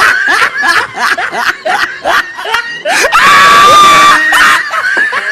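A man screaming in fright, with laughter around it. The longest and loudest scream is held from about three seconds in for just over a second.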